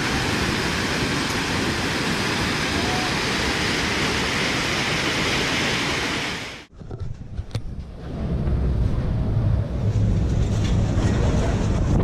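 Overflowing river in flood rushing past, a steady dense wash of water noise that cuts off abruptly about two-thirds of the way through. Then strong wind buffets the microphone with a low, gusty rumble and a few faint ticks.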